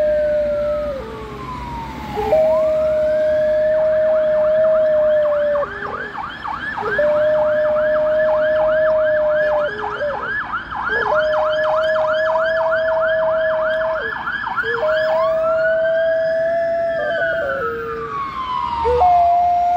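Ambulance siren passing: a slow rising-and-falling wail that switches to a fast yelp a few seconds in, then back to the wail about three quarters through. Over it an Alaskan Malamute howls along in long, steady held notes, each a few seconds long, dropping slightly at the end, with short breaks between.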